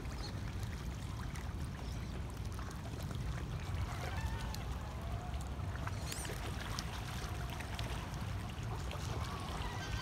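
Steady low rumble of wind buffeting the microphone over lake water, with a few faint wavering calls in the middle of the stretch.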